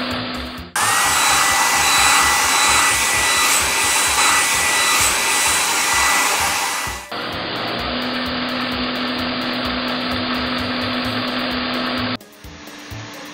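Cartoon car-wash drying-machine sound effect: a steady electric blowing noise. From about a second in to about seven seconds it turns into a louder, brighter hiss with a steady whistle-like tone, then drops back to the lower blowing hum. It fades down near the end.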